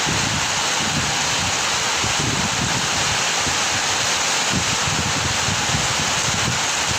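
Heavy rain falling in a steady, dense hiss, with wind gusting against the microphone in low, uneven rumbles.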